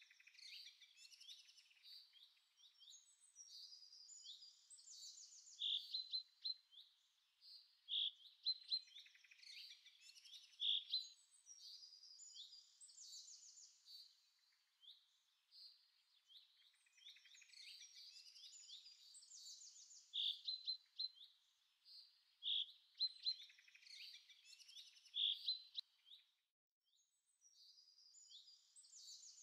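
Birdsong: quick high chirps and trills with a louder clear note every couple of seconds. The same stretch of song comes round again about 14 seconds later.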